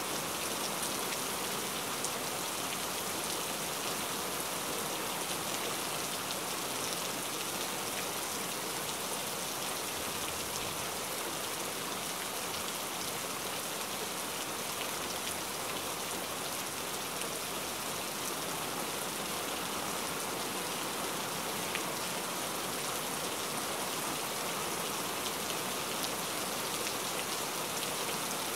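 A steady, even hiss of water, like rain falling on a river's surface, with faint scattered ticks of drops.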